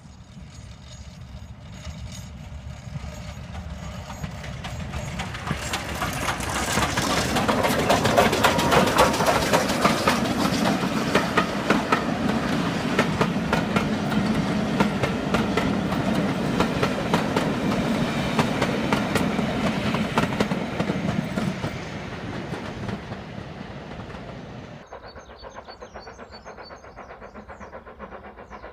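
BR Standard Class 5MT steam locomotive with its train of carriages coasting past, with no exhaust beat. It swells to a steady rumble and rapid clatter of wheels over rail joints, then fades as the coaches go by. About 25 seconds in the sound drops suddenly to a much fainter background.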